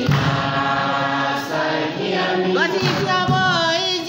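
A group of people singing together in a church-style hall, voices holding long notes, with a sung line that swoops upward partway through.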